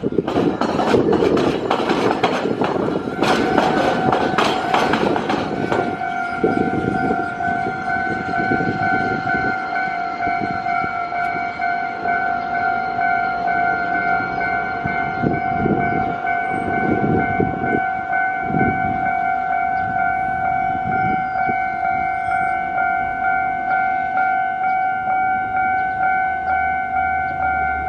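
Rail wheels clattering fast and loud over the diamond crossing, where a tramway crosses the railway on the level. About three seconds in, the level-crossing warning bell starts and rings on steadily in an even pulse. A few more wheel knocks come from the crossing later.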